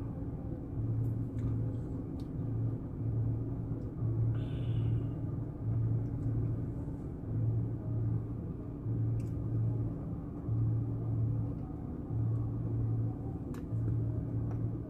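Freight train passing a level crossing, heard from inside a waiting vehicle: a low rumble that swells and fades unevenly over a steady low hum, with a few faint clicks.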